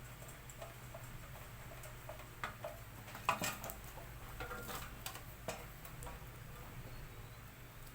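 Scattered light clicks and taps of small parts being handled while working on a laminator, the sharpest a little after three seconds, over a low steady hum.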